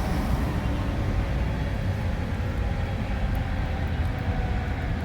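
Outdoor tornado warning siren, faint and slowly falling in pitch as it winds down, under a heavy low rumble.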